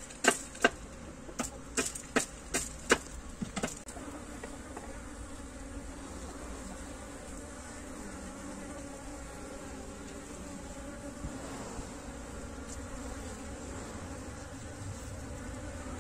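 Honey bees humming steadily inside a wall hive that has just been opened. In the first few seconds there are about eight sharp, irregular knocks as the wooden cover board is worked loose from the mud wall.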